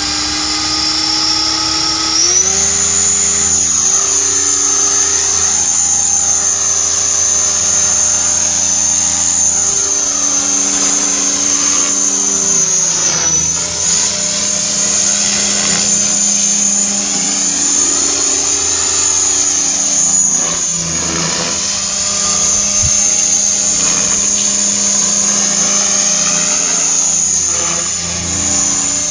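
Electric Align T-Rex 500 Pro DFC radio-controlled helicopter in flight: a high-pitched motor and gear whine with rotor-blade hum. The whine steps up in pitch about two seconds in, then holds steady while the tone shifts as the helicopter moves about overhead.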